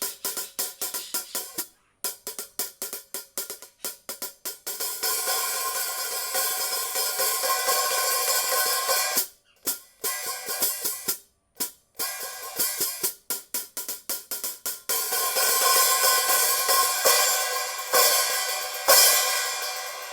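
Zildjian 13-inch A Mastersound hi-hats with a cracked top cymbal, played as a sound test. Fast, short closed strokes alternate with two longer stretches of continuous washy sizzle, broken by a few brief stops.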